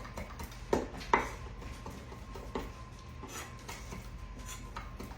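Kitchen knife chopping fresh herbs on a cutting board: a string of quick, irregular taps, with two louder knocks about a second in.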